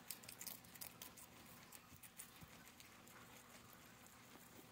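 Guinea pigs chewing hay and fresh greens: faint, quick crunching clicks, busiest in the first second and sparser after.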